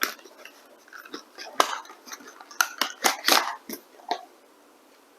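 Packaging of an NVMe SSD being opened and handled after its seal is cut: irregular crinkles and clicks, busiest in the middle.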